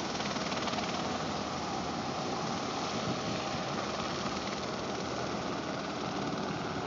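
Steady drone of a distant firefighting helicopter in flight, mixed with wind noise on the microphone.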